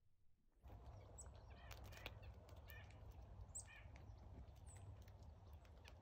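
Chickadee calls starting about half a second in: a high thin note followed by a few lower, harsher notes, repeated several times, a chick-a-dee pattern. Scattered light taps and a faint steady low rumble run underneath.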